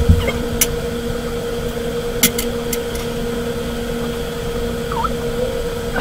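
A steady hum in the room, with a few sharp clicks of a stone chess piece being moved and set down on a stone board: one about half a second in, then a quick cluster a little after two seconds.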